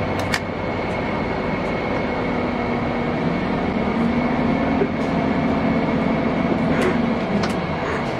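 Steady rumble of a moving vehicle heard from inside the cabin, with a faint motor whine that swells slightly through the middle and a few light clicks and rattles.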